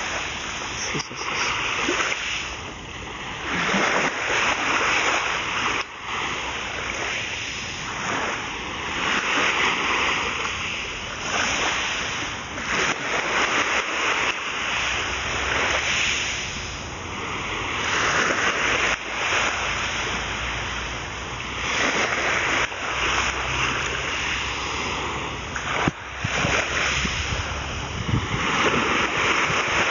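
Small waves breaking and washing up on a sandy beach, the rush of surf swelling and fading every few seconds.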